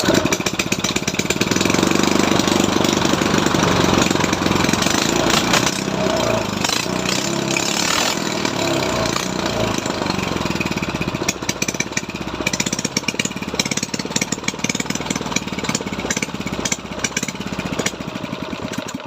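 Small engine running with a rapid, even firing clatter, starting abruptly and stopping abruptly at the end.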